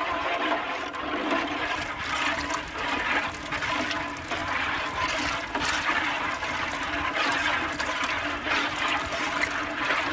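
Large metal cauldron of liquid boiling hard over an open wood fire, a steady bubbling rush with small irregular crackles throughout.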